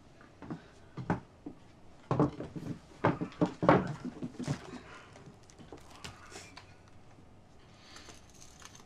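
Rice bowls and chopsticks knocking and clinking on a dinner table: a string of short clatters, busiest between about two and five seconds in.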